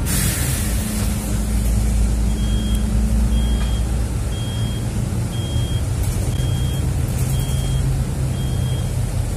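Inside a city bus: a short burst of compressed-air hiss at the start, then the bus engine running steadily under a low drone while a short high electronic beep repeats about once a second, seven times.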